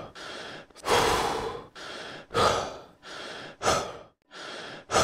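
A person breathing heavily and rhythmically, a louder, noisy breath alternating with a quieter one about every one and a half seconds.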